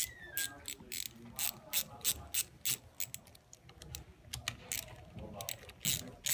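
Hand ratchet clicking in short, irregular runs while the bolts on a Cummins PT fuel pump's governor housing are loosened.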